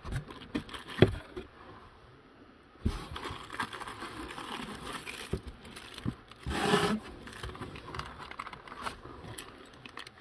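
Hands handling kit parts and their packaging in a foam-lined cardboard box. A few sharp knocks come as parts are moved in the first second or so. From about three seconds in there is rustling and crinkling of packaging, loudest for a moment a little past the middle.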